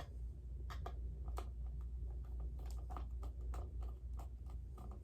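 Scattered light clicks and taps of a plastic toy robot being handled, irregular and a few per second, over a steady low hum.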